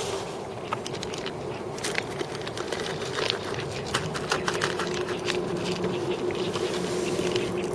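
Kittens eating, with irregular small clicks and crunches of chewing and of the food dish. A steady hum runs underneath.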